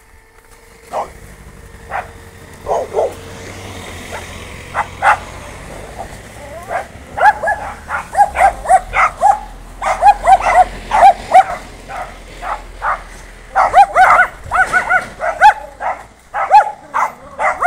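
A dog barking and yipping over and over in short, sharp calls, sparse at first and then coming thick and fast from about seven seconds in.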